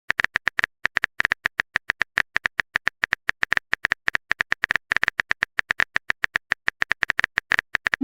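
Rapid typing clicks, the keyboard sound effect of a text message being typed, about six or seven crisp clicks a second with a few brief pauses.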